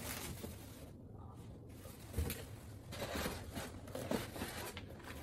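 Plastic packaging rustling and cardboard boxes scraping and shifting as parts of an electric bike conversion kit are lifted out of the packing box, with a soft knock a little after two seconds in.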